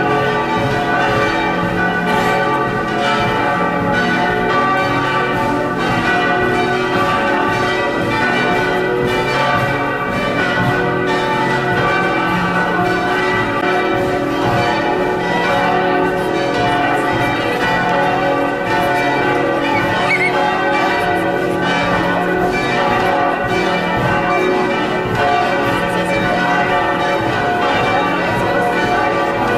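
Several large church bells ringing together in a continuous peal, their overlapping tones struck again and again and sustained.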